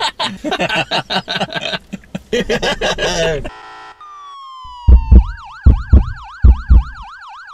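Men laughing and chattering, then a logo intro sting: falling electronic tones lead into a fast yelping siren-like wail, about four swoops a second, over a few heavy bass thumps.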